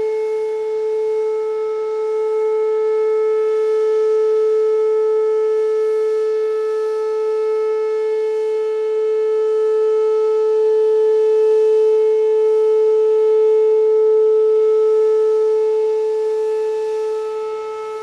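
Electronic outdoor tornado warning siren sounding the steady Alert signal of its weekly test: one loud held tone with no rise or fall in pitch, growing somewhat fainter near the end.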